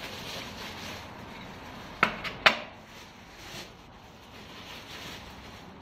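Light rustling of a plastic trash bag handled over a white plastic trash can, with three sharp plastic knocks close together about two seconds in as the can's parts are knocked or seated together.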